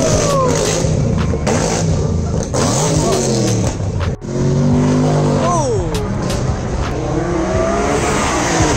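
Car engines revving hard at a meet, their pitch climbing and then falling away several times in overlapping runs. There is a brief break about four seconds in.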